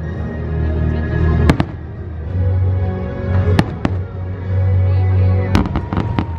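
Fireworks going off over a loud show soundtrack with heavy bass: single sharp bangs about a second and a half in and twice more near the middle, then a fast run of crackling pops near the end.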